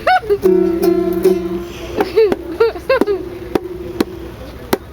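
A child drumming, a few irregular sharp taps, while a voice holds one long steady note and makes short up-and-down sounds.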